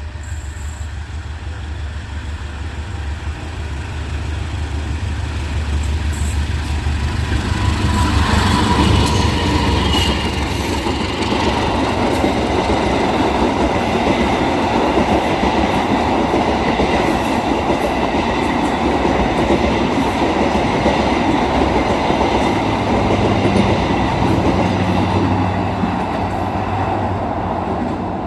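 Diesel passenger train passing close by. The locomotive's engine rumble builds over the first eight seconds or so, then the steady wheel-on-rail noise of the coaches running past takes over, and it drops away at the very end.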